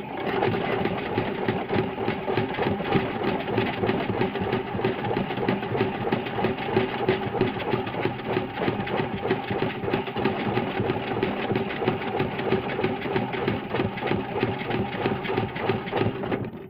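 Washing machine running a spin: a steady motor hum with a fast, dense rattle, cutting off suddenly near the end.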